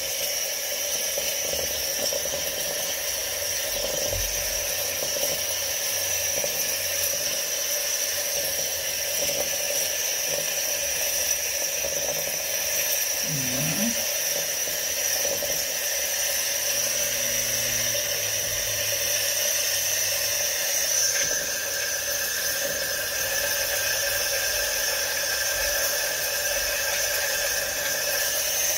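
Steam wand of a Saeco Poemia espresso machine hissing steadily with a high whistle as it spits out very hot water and steam, flushing descaling solution through the steam circuit. A second, lower whistle joins about three-quarters of the way in.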